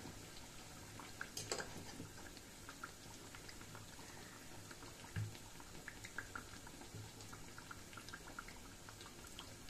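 Pestiños (dough pastries) frying in hot oil in a cast-iron pan: a soft, steady sizzle full of small crackles and pops, with a couple of light clicks.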